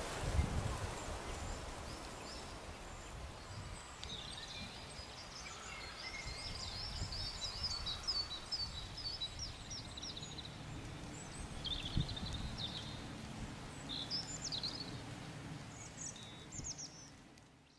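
Outdoor ambience: songbirds chirping and twittering in quick runs over a low rumble, all fading out at the end.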